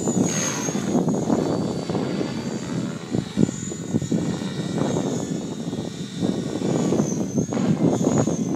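Align T-Rex 550 electric radio-controlled helicopter flying at a distance: a high, wavering whine over a steady rushing noise that rises and falls.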